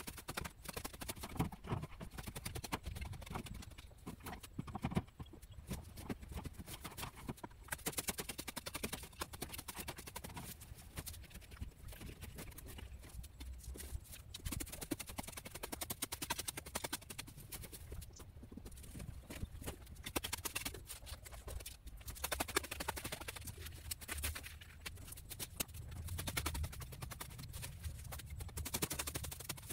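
A long-handled garden hand tool hacking at weeds and soil in a rapid, uneven run of strikes. The strikes break off briefly a little past halfway, then go on.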